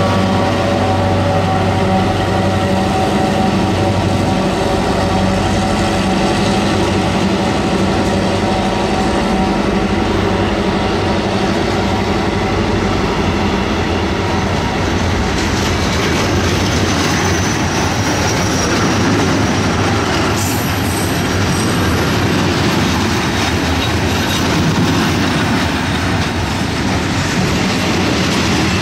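EMD G26 diesel locomotives working hard to start a heavy freight train, their engine drone fading in the first several seconds as they pull away. Loaded grain hopper wagons then roll slowly past with wheel clatter and some wheel squeal.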